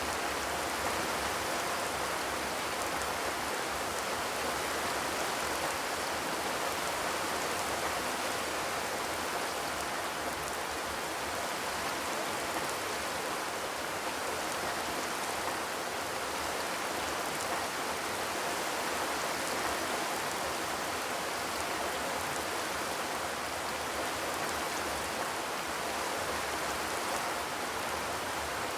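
Steady rain falling on a corrugated zinc roof, an even patter with no thunder.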